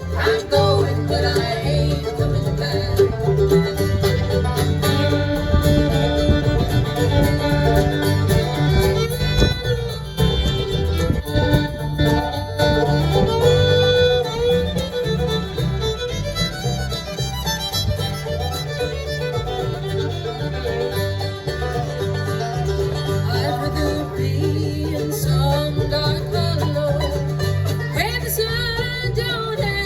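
A bluegrass band playing live without singing: fiddle, banjo and guitar over a steady bass line.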